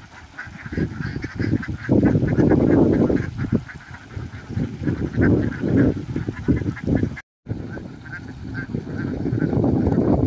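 A large flock of domestic ducks quacking together in a dense, continuous din, briefly cut to silence about seven seconds in.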